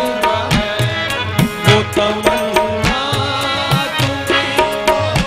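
Qawwali music with no singing: tabla drumming a quick, steady rhythm under held harmonium notes.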